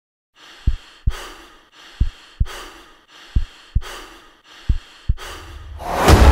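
Sound-design intro: heavy breathing with a slow heartbeat effect, four deep lub-dub thumps about a second and a half apart. Music swells in near the end.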